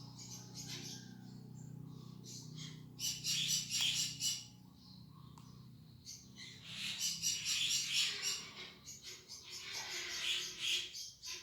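Small birds chirping in fast repeated trills, in two spells with a quieter gap between them.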